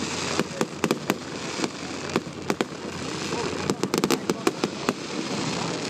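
Fireworks bursting overhead: a run of sharp bangs and pops over a continuous crackling hiss, with a dense flurry of bangs a little past halfway.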